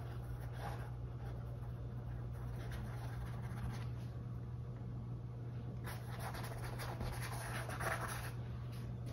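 Faint scratching and dabbing of a small paintbrush working acrylic paint onto a canvas, in a few short spells, over a steady low hum.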